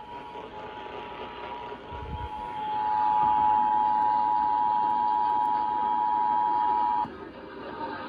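Emergency Alert System two-tone attention signal (853 Hz and 960 Hz sounded together) over a steady hiss. It is weak for the first couple of seconds, then comes in loud and steady, and cuts off abruptly about seven seconds in.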